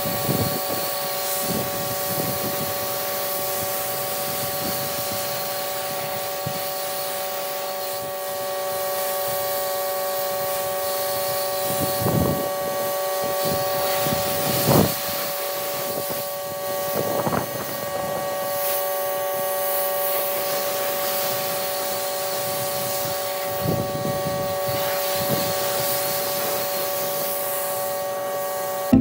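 Electric pressure washer spinning up and running steadily: a whine of several steady tones over the hiss of the water jet, with a few brief louder swells about halfway through.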